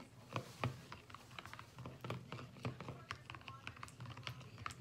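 Metal spoon stirring a thick liquid-soap mixture in a bowl, giving light, irregular clicks and taps several times a second as it knocks and scrapes the bowl.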